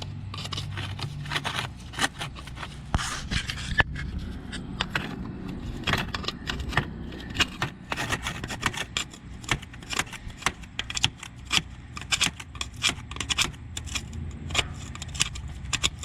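A metal screwdriver scraping and clicking against metal, many irregular sharp clicks and scratches, as it digs oily grime out around the engine's distributor opening.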